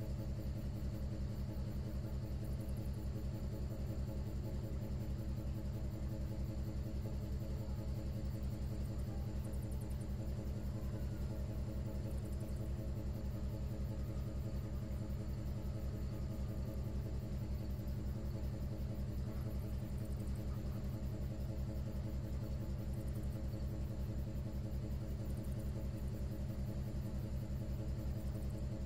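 A river cruise ship's engine running steadily: an even low throb with a fast pulse.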